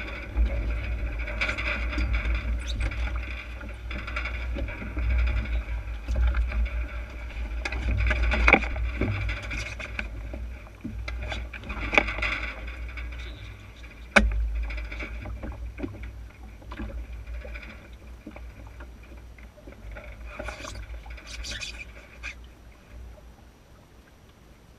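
Water rushing and splashing along the hull of an Enterprise sailing dinghy under way, over a steady low rumble, with several sharp knocks along the way. It grows quieter over the last few seconds.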